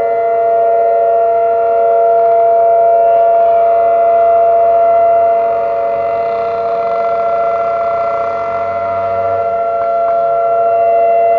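Several outdoor warning sirens, among them Whelen 2806 and 2905 rotating sirens, sounding the steady Alert tone together as a monthly test: a held drone of several steady pitches at once that swells and fades slightly as the sirens turn.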